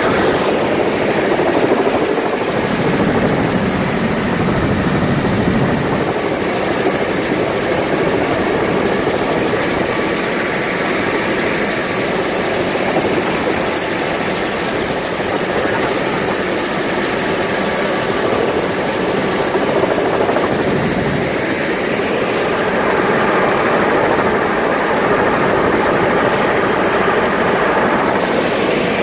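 Helicopter rotor and engine running loud and steady, heard from inside the cabin, with a steady high whine over the noise.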